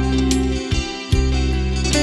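Music with guitar over a sustained bass line, which drops out briefly about a second in.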